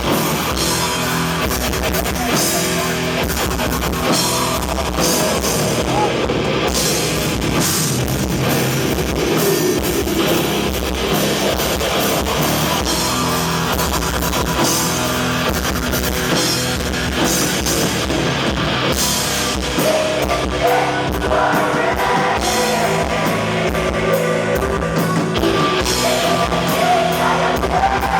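A black metal band playing live: distorted guitar and bass, keyboards and a drum kit, loud and continuous. In the second half the drums play rapid, evenly spaced strokes.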